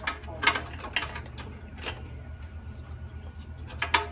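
Sharp clicks of computer keys being pressed, several in the first two seconds and a quick pair near the end, over a steady low hum.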